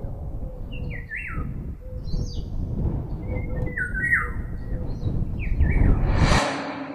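Small birds chirping, short falling calls repeated in quick little clusters over a low steady rumble. Near the end a rush of noise swells up and cuts off abruptly.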